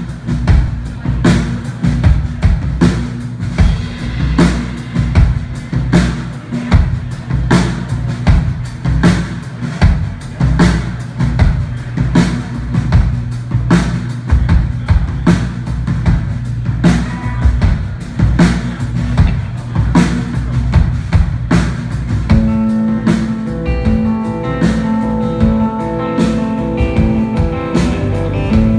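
Live rock band playing an instrumental passage: a steady drum-kit beat with bass and electric guitars. About three-quarters of the way through, held guitar notes and chords come in over the drums.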